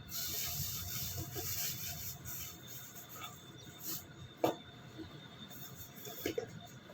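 Soft rustling of food packaging being handled, followed by a few faint light knocks.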